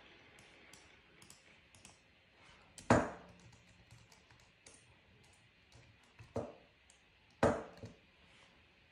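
Light clicks and taps on a laptop's keyboard and trackpad, a few a second, with three louder knocks about three, six and a half and seven and a half seconds in.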